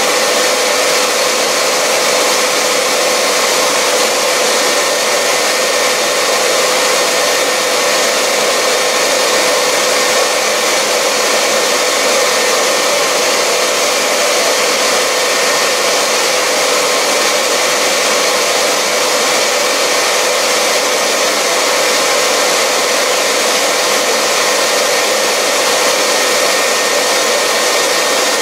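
Dumore 44 tool post grinder running steadily at speed while its wheel is dressed by a single-point diamond, mixed with a vacuum cleaner extracting the dressing dust. A constant motor whine over an even rushing noise.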